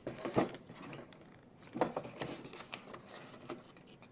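Hard objects being handled: a run of irregular clicks, knocks and light rattles, loudest near the start and about two seconds in, then thinning out.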